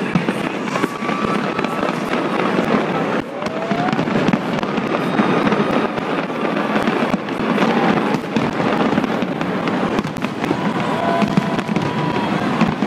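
Large aerial fireworks display, many shells bursting in quick succession: a continuous dense crackle and banging with no let-up.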